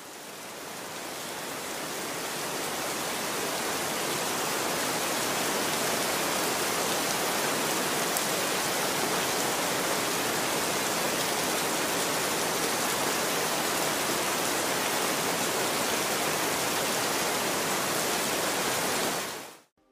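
Steady rain, an even hiss that swells up over the first few seconds and cuts off suddenly near the end.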